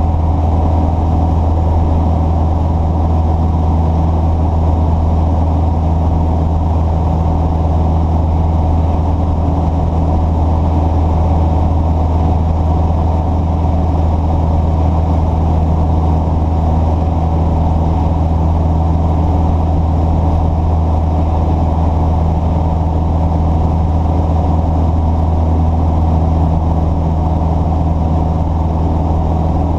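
An engine running steadily at idle: a constant low hum that does not change.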